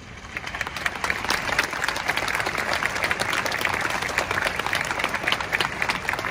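Large crowd applauding: the clapping swells over about the first second into a dense, steady patter of many hands.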